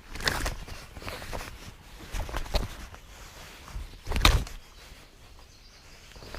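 Irregular rustling and knocks, such as handling a camera, rod and freshly caught fish close to the microphone, with the loudest knock about four seconds in.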